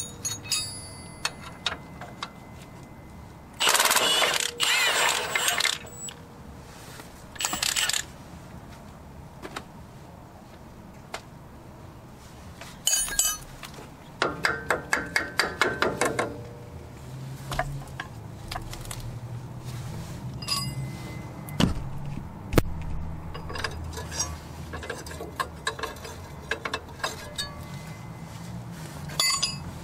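Socket ratchet with a 22 mm deep socket and extension turning the nut off the lower shock mounting bolt, while a 19 mm wrench holds the bolt head. It comes as bursts of ratcheting, with a quick even run of clicks about halfway through and scattered metal clinks in between.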